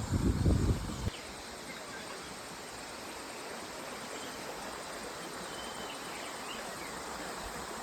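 Steady rushing of a flowing river, with a loud low rumble in the first second and a few faint high chirps.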